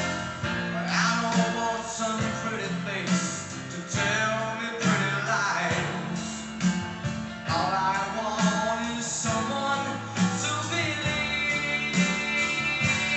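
A recorded song, a sung vocal over guitar and steady bass notes, played back through DIY transmission-line speakers driven by an EL84 tube amplifier.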